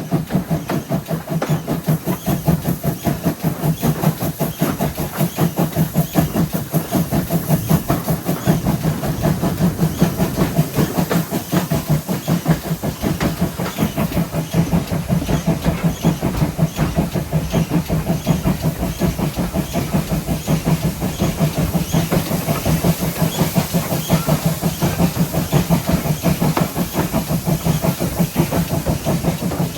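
GWR 5700-class pannier tank steam locomotive 7754 working along the line: a steady, quick, even rhythm of exhaust beats with steam hiss and rail running noise.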